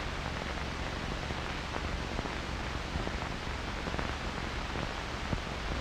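Steady hiss of an old film soundtrack, with a couple of faint clicks in the second half.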